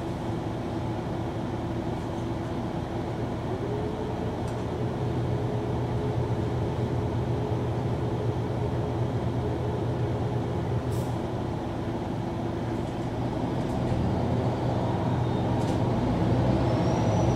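MAN NG 313 articulated city bus driving, its engine running steadily and its pitch stepping up a few seconds in. A thin high whine rises near the end as the sound grows slightly louder.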